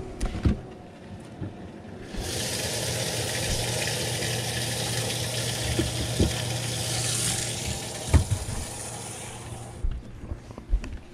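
Bass boat livewell pump switched on about two seconds in, humming steadily while water pours into the livewell with a steady hiss, then cutting off shortly before the end. A few sharp knocks against the boat, the loudest about eight seconds in.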